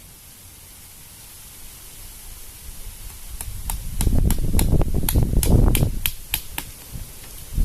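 Wind blowing in gusts across the microphone. A steady hiss swells about four seconds in into a heavy low rumble, which eases off near the end. Over the gust comes a quick run of sharp ticks, about four a second.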